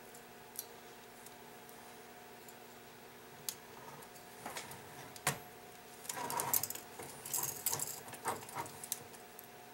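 Light metallic clicking and jingling from a brass grandfather-clock movement being worked on by hand: a few single sharp clicks at first, then a dense run of rattling and clinking from about six seconds in as the movement is picked up and its hammers and loose parts shift.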